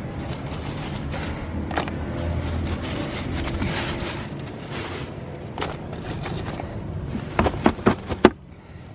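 Chunks of dry, rotted wood and bark being shifted and dropped into a cloth-lined wooden crate, with scraping and rustling and a quick run of about four sharp wooden knocks near the end.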